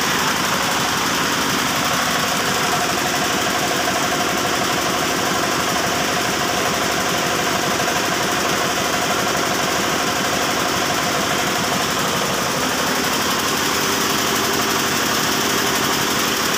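Yanmar TF105R single-cylinder diesel engine running steadily, belt-driving a twin-cylinder air compressor pump on a test run, with a fast, even chugging beat.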